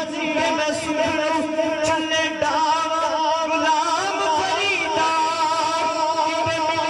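A male voice sings a Punjabi naat into a microphone, an ornamented, wavering melody over a steady held drone from backing singers.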